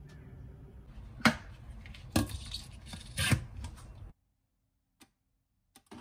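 Kitchen clatter: three sharp knocks of utensils or dishes about a second apart over a low room hum, then the sound cuts out to silence.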